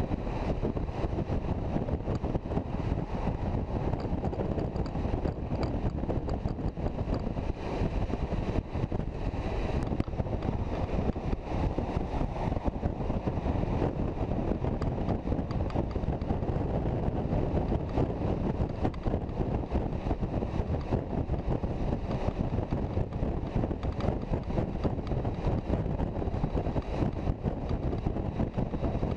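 Touring motorcycle cruising at motorway speed: steady wind rush over the microphone mixed with engine and tyre noise, even throughout.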